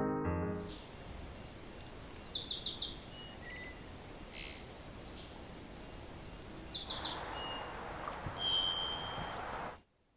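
A small songbird sings a high, rapid trill of about ten notes a second, twice, some four seconds apart, with a short whistled note later and another trill beginning at the very end. The last notes of a piano tune fade out at the start.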